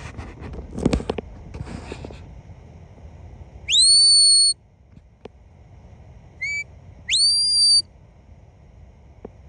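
Whistle commands to a herding dog: a whistle that sweeps up and holds a high note for under a second, a short pip, then a second rising, held whistle. In the first couple of seconds there is a rustle of wind or handling noise.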